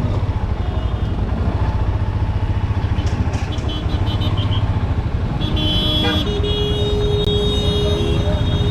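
Motorcycle engine running steadily while riding through traffic, with vehicle horns honking from about five and a half seconds in, one held as a long steady note.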